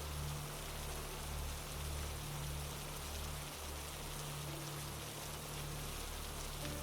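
Rain falling steadily on surfaces, an even hiss with no let-up, over a low steady hum.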